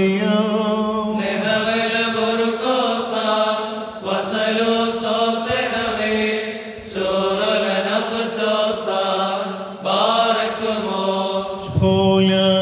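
Syriac liturgical chant: voices sing a prayer hymn in sustained phrases of about three seconds, with short breaks between them.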